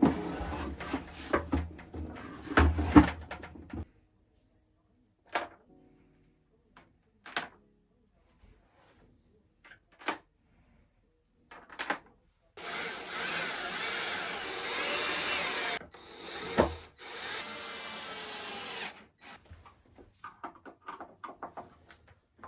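Knocks and scattered clicks of handling, then an electric motor-driven tool running for about three seconds with a hissing edge. A sharp knock follows, then a quieter second run for a couple of seconds, and light ticking near the end.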